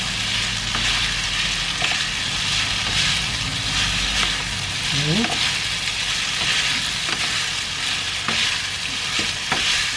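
Spaghetti being tossed and stirred with wooden utensils in a frying pan still on the heat: a steady sizzle from the hot fat, with the irregular scrape and slap of the strokes.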